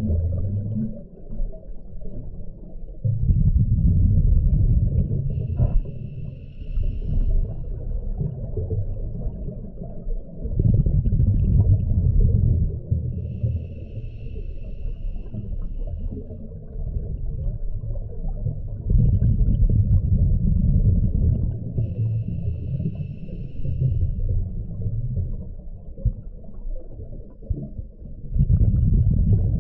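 A scuba diver breathing through a regulator underwater: a low rumble of exhaled bubbles, then a thin high hiss as the diver inhales, repeating about every eight seconds, four breaths in all.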